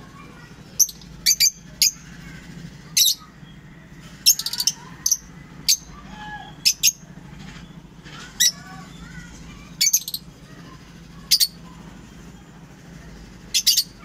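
Lovebirds giving short, shrill, high-pitched chirps, one or two at a time every second or so, over a faint steady low hum.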